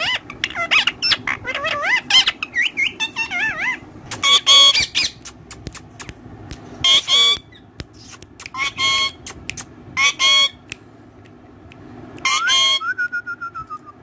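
Indian ringneck parakeets calling: warbling, quickly gliding chatter at first, then several short harsh squawks, and a single falling whistle near the end.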